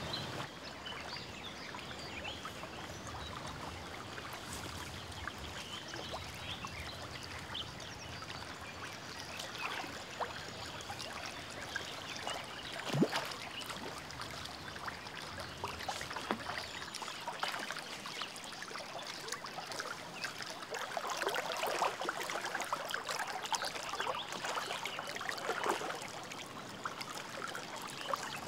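River water running and trickling steadily, with one sharp click about halfway through and livelier water noise near the end.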